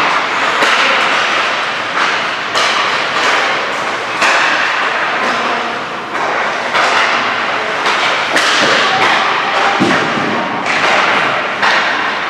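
Ice hockey play on a rink: repeated sharp thuds of pucks and players hitting the boards, mixed with hissing scrapes of skate blades on the ice, a new one every second or two.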